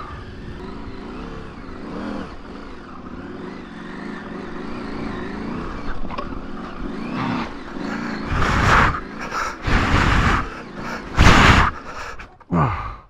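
Off-road motorcycle engine running as the bike rides a rough dirt and rocky trail, its pitch wavering with the throttle. In the second half a few loud bursts of noise cover the engine, and near the end the revs drop sharply.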